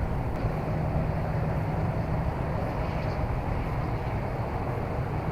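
Steady outdoor background noise: an even low rumble with a hiss above it, and no distinct events.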